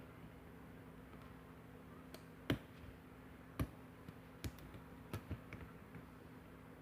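Lock pick and tension wrench working a pin-tumbler lock: a handful of small, scattered metallic clicks and taps, the loudest about two and a half seconds in, over a faint steady hum.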